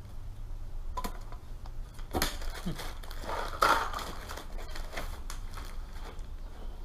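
Unboxing handling of a wiring kit's packaging: plastic bags of small electrical connectors crinkling, with a few sharp clicks and knocks.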